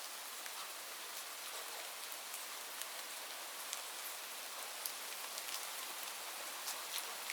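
Steady rain, an even hiss with scattered sharper drop ticks.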